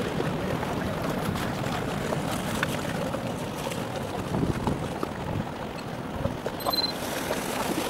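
Steady rushing of wind and lapping water, heard from the deck of a boat on choppy open water.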